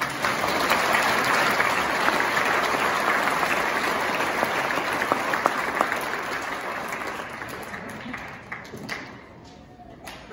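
Audience applauding, starting all at once, holding strong for several seconds, then dying away to a few scattered claps near the end.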